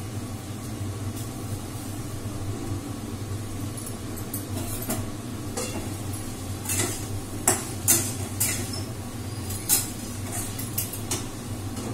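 Metal spatula scraping and clinking against a steel wok as food is stirred, with a steel lid lifted off and set down, over a steady low hum. The clinks come in a cluster from about halfway through.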